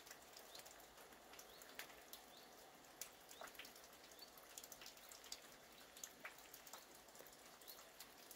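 Faint rain falling, with scattered separate drips landing nearby.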